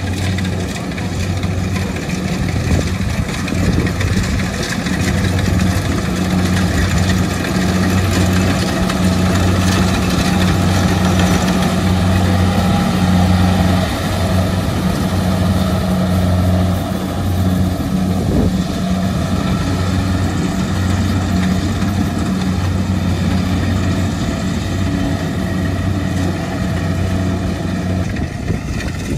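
Kubota DC70 rice combine harvester working: its diesel engine runs steadily with a low hum, under the broad noise of the cutting and threshing machinery.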